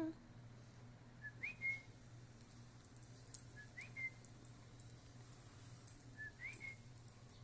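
Three short, clear whistled calls about two and a half seconds apart, each a brief note followed by a quick upward slide into a short held note, with faint scattered ticks over a steady low hum.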